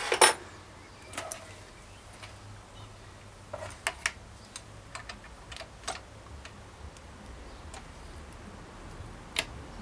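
Scattered light metallic clicks and taps from hands working the stem and linkage of a Girvin Vector bicycle suspension fork, with the loudest knocks right at the start.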